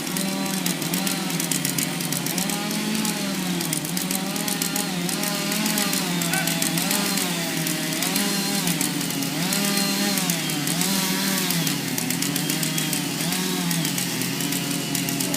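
Two-stroke chainsaw running at high revs while cutting into a big oak tree. Its engine pitch sags and recovers about once a second as the chain bites and frees.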